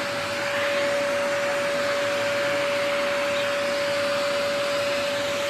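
Vacuum cleaner running steadily: a constant motor whine over an even airy rush.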